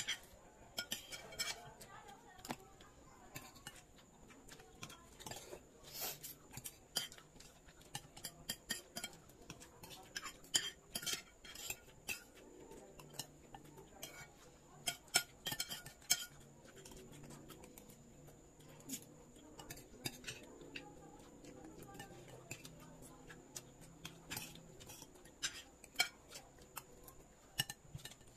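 Spoons and forks clinking and scraping against ceramic plates as several people eat, in irregular sharp clinks.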